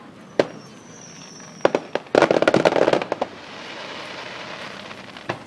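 Fireworks going off: a sharp bang, then a faint high whistle and two more bangs, then a dense run of rapid crackling pops about two seconds in. A fading fizzing hiss follows, and another bang comes near the end.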